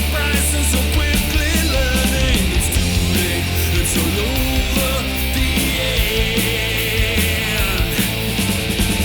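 Background rock music with distorted guitars and a steady drum beat.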